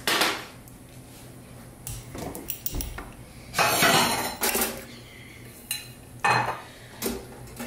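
Kitchen clatter of dishes and cutlery being handled on a counter and taken from a cabinet: several separate knocks and clinks, the longest and loudest, with a ringing clink, about four seconds in.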